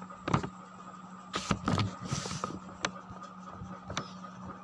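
Several light taps and clicks, a fingertip working a phone's touchscreen, over a steady low hum. There is a short hiss about two seconds in.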